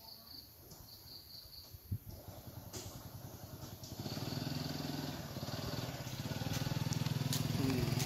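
A motor vehicle's engine, heard faintly at first and growing steadily louder as it approaches over several seconds.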